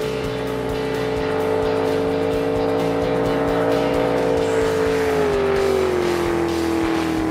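Racing jet boat at full speed, its engine holding a steady high note that drops in pitch about five seconds in. Background music with a steady beat runs underneath.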